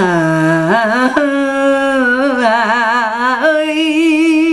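A woman singing a Central Vietnamese lullaby (hát ru miền Trung) unaccompanied, drawing out long vowels in a slow ornamented line. Her pitch climbs in steps, wavers widely in the middle, and settles on a higher held note about three and a half seconds in.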